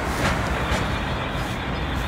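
Freight train of covered hopper cars rolling on the rails as it moves away, a steady rumble of wheels on track with a few sharp clacks.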